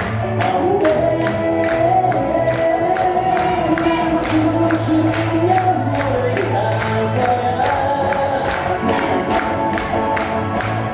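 Upbeat praise music with a group of voices singing over a steady beat.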